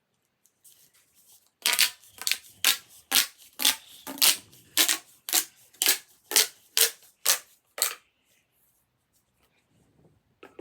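Plastic pop tube being stretched and pushed back in, over and over, making a run of about a dozen short popping strokes with a slight ring to each, roughly two a second.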